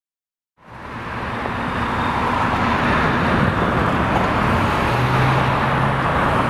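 Road traffic on a highway: cars passing with steady tyre and engine noise, fading in from silence about half a second in. A low engine hum stands out briefly near the end.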